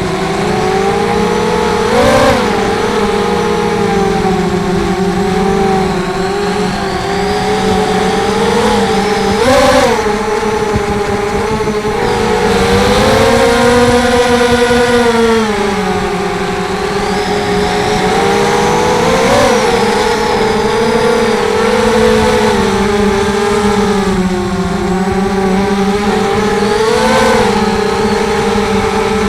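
ZMR250 quadcopter's brushless motors spinning Gemfan 5045 props in flight: a steady buzzing whine whose pitch rises and falls with throttle. There are short throttle punches four times and a longer stretch of higher pitch near the middle.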